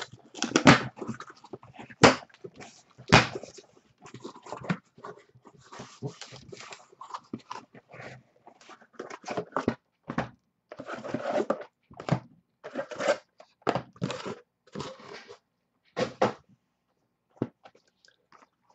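Cardboard case of trading-card boxes being handled and opened: flaps pulled back, sealed boxes scraped out and knocked down onto a stack. There are a few sharp knocks in the first three seconds and stretches of cardboard scraping and rustling after.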